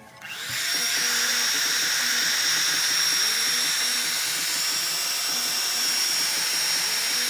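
Electric heat gun switched on, its fan motor coming up to speed about half a second in and then running steadily, with a high whine over the rush of blown air.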